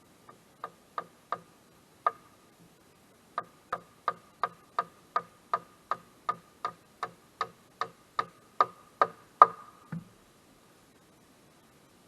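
A run of sharp ticks with a slight ringing pitch, a few spaced out at first and then a steady beat of about three a second, ending in a low thud about ten seconds in.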